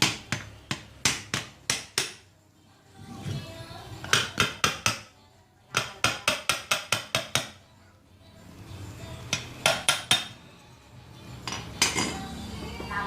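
Quick runs of sharp hammer-like taps, about three or four a second, in bursts of five to eight strikes separated by short pauses.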